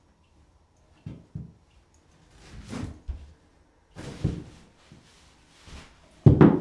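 Dull knocks and thumps: two short ones about a second in, a rising rustle that stops sharply just before the three-second mark, a sudden louder knock about four seconds in, and a heavy thump near the end.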